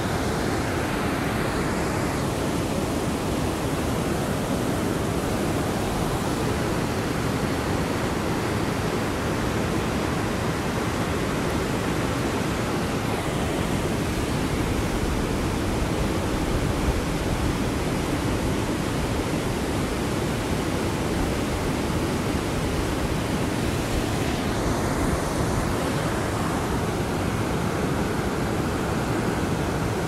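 Whitewater river rapids rushing: a steady, even rush of water that sounds like white noise, heaviest in the low and middle range and without breaks.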